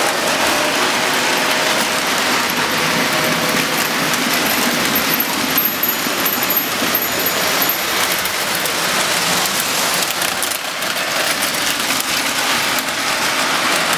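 Several toy electric trains running on metal track: a steady clattering rattle of wheels and small motors.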